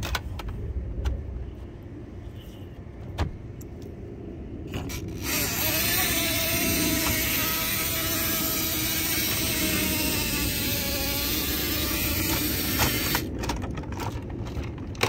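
Hot Wheels Mega Car Wash toy playset: a few light plastic clicks as a toy car is set on the track, then a steady hiss with a wavering whine that starts abruptly about five seconds in and cuts off about eight seconds later.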